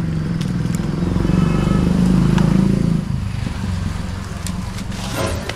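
A motor vehicle's engine running steadily. It is loudest for about the first three seconds, then falls away.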